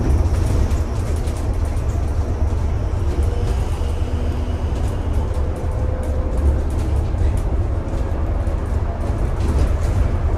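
Bus cabin noise on the move: a steady low rumble of engine and road, with frequent small rattles and clicks from the interior fittings and a faint high whine.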